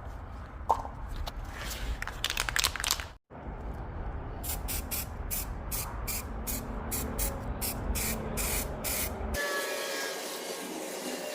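Aerosol can of weld-through primer sprayed in short hissing bursts, about two a second, coating bare sheet metal before tack welding. The spraying stops abruptly about nine seconds in.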